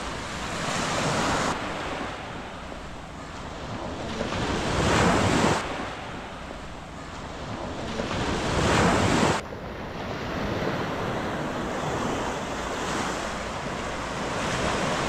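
Small waves breaking and washing up a sandy beach, swelling and falling back three times about four seconds apart, then a steadier wash of surf.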